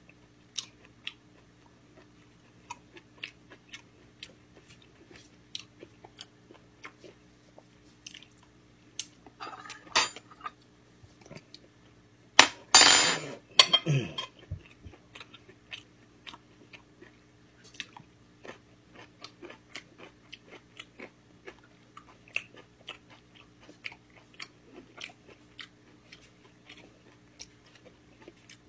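Close-up chewing and mouth clicks of a person eating gamjatang, Korean pork bone soup, over a faint steady hum. A loud noisy burst lasting about a second and a half comes just after the middle.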